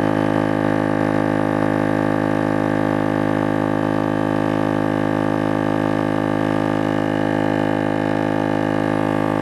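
A 12-volt single-cylinder Exitrax 160 LPM air compressor running, a steady, unchanging drone while it pumps up a tyre.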